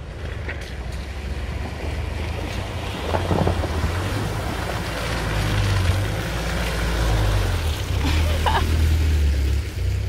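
Mitsubishi Pajero 4WD driving through a shallow creek crossing and up the dirt track toward the microphone: a low engine drone with water splashing and tyres on gravel. It grows louder as the vehicle nears and drops off sharply near the end as it passes.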